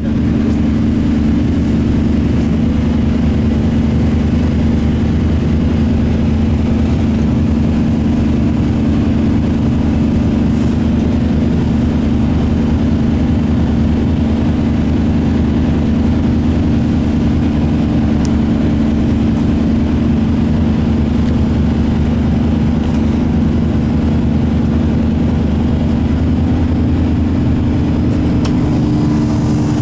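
Boat engine running at a steady speed, an even drone that holds one pitch.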